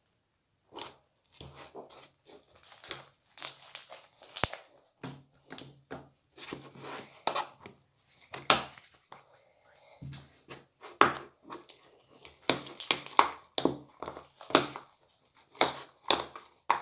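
Homemade borax slime being mixed by hand: a run of irregular sticky crackling and squelching noises as it comes together into a ball.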